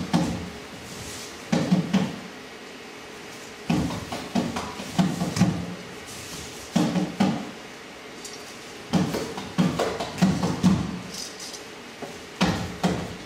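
Percussive thumps and knocks in short bursts of several hits, with quieter gaps of a second or two between the bursts.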